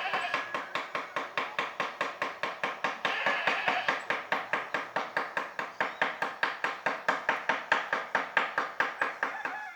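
Mallet tapping a carving chisel into teak wood in a quick, steady rhythm, about four to five strikes a second.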